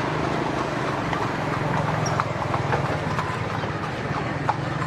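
Hooves of a horse pulling a delman, a horse-drawn carriage, clip-clopping on the road in an uneven rhythm, over a steady low rumble.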